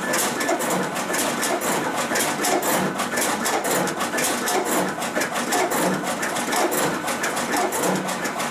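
SCCP B digital finishing machine running continuously, its vacuum feeder taking in sheets to be slit, cut and creased. It makes a steady, rapid mechanical clatter with a beat that repeats about once a second, one beat per sheet.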